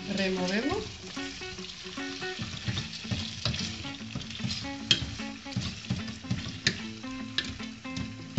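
Chicken pieces sizzling in hot olive oil in a stainless-steel pot while a wooden spatula stirs them, scraping and knocking against the pot with many short clicks.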